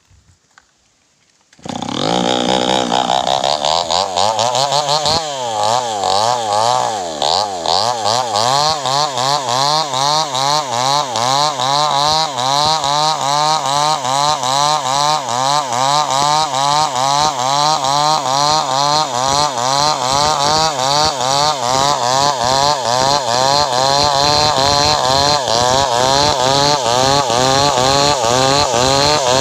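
Two-stroke chainsaw starting about two seconds in and running on, its engine note wavering up and down in a steady regular warble.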